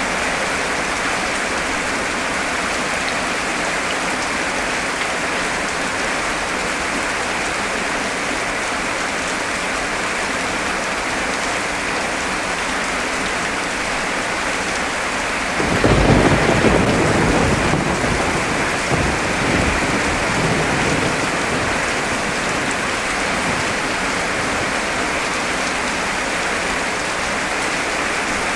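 Heavy rain hammering down in a steady hiss. A little past halfway a clap of thunder breaks in suddenly, deep and loud, and rumbles on for about five seconds before fading back under the rain.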